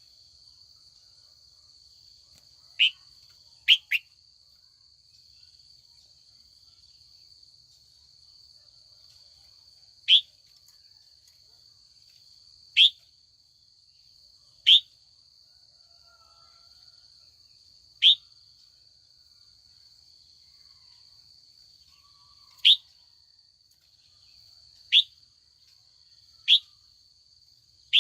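Female red-whiskered bulbul giving short, sharp calls that drop in pitch, about ten of them spaced irregularly, over a steady high buzz.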